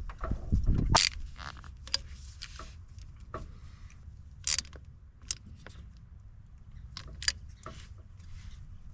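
Scattered sharp clicks and small metallic knocks of hand tools and parts being handled while a glow plug relay is fitted. A heavier rumble of handling noise sounds in the first second.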